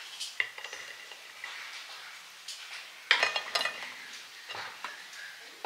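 A serving spoon scraping and tapping on a ceramic plate as rice and beans are spooned onto it. There is a louder clatter with a brief ring about three seconds in.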